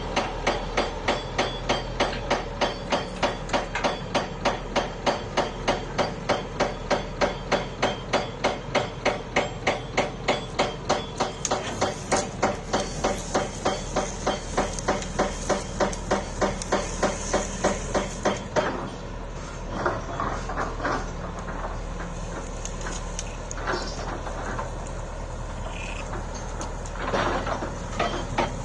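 Steady rhythmic hammering, about two and a half blows a second, that stops about two-thirds of the way through. Steadier machine noise with a few separate knocks follows.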